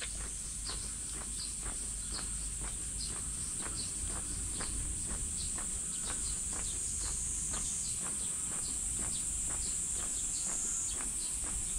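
A steady, high-pitched drone of cicadas in the trees, with the walker's footsteps on the paved lane ticking along at about two steps a second.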